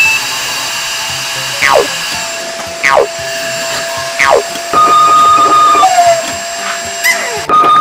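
Bosch canister vacuum cleaner running steadily with a whine, under background music. Three quick falling whistles sound over it about a second and a half apart, and the noise breaks off near the end.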